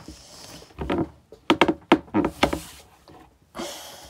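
A quick run of knocks, then a brief crinkle of a foil booster-pack wrapper near the end.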